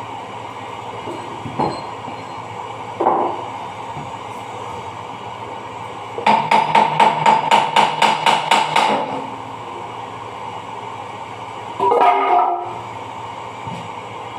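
Hammer blows on the metal gearbox of a dough mixer: a quick run of about a dozen strikes, some five a second, each with a metallic ring. There are a couple of single knocks before it and a short clatter after it.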